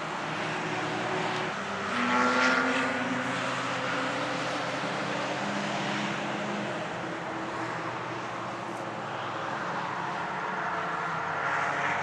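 Cars lapping a race circuit at a distance, a steady engine drone. One engine note swells and fades about two seconds in, and another rises near the end.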